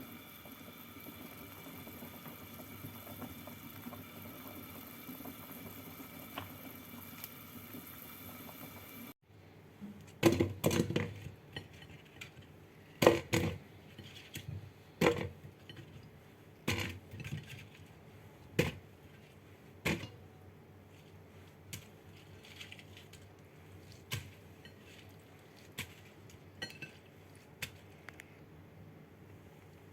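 A steady hum and hiss that cuts off abruptly about nine seconds in, followed by kitchenware clinking and knocking: dishes, pots and utensils set down and handled, a sharp knock every second or two, the loudest soon after the cut.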